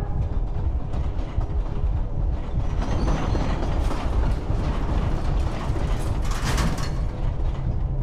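Steady low rumbling mechanical ambience with creaks and rattles, and a short burst of noise about six and a half seconds in.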